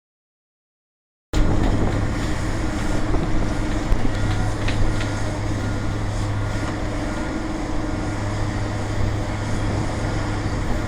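Silence for about the first second, then the engine of heavy drilling or concrete-pumping equipment cuts in already running and runs steadily at an even speed with a constant low hum.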